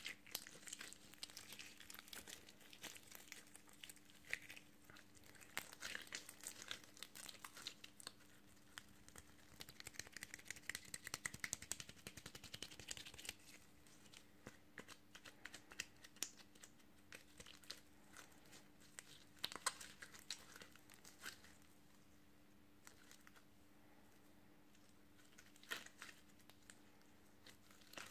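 Pink slime squished, stretched and kneaded between fingers close to the microphone, making faint sticky crackles and many small clicks and pops. The crackling is busiest about ten seconds in and thins out after about twenty seconds, with a few louder pops near the end.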